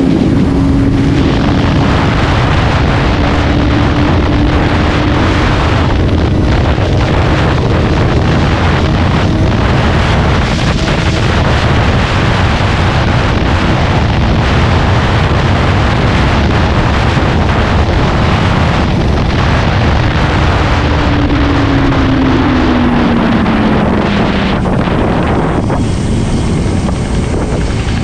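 Benelli TNT 600i inline-four motorcycle engine running at a steady cruise, half buried under heavy wind buffeting on the microphone. About three quarters of the way through, the engine note falls as the bike slows.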